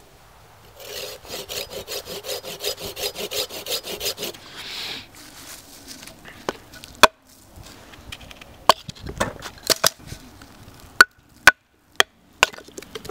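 Fast, even rasping of a blade working through wood for about three seconds, then a run of sharp, separate knocks as a wooden baton strikes the spine of a Morakniv Garberg knife to split a small length of wood.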